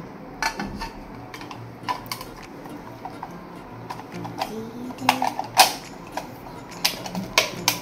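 Irregular sharp clicks and taps of a hard clear plastic wristwatch display case being handled and opened, the lid knocking against its base; the loudest click comes about two-thirds of the way through.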